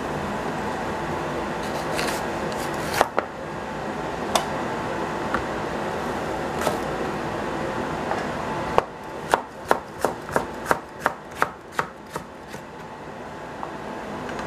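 Chef's knife slicing a green bell pepper into strips on a plastic cutting board. A few separate knocks come first, then from about nine seconds in a quick run of about eleven chops at roughly three a second, over a steady background hiss.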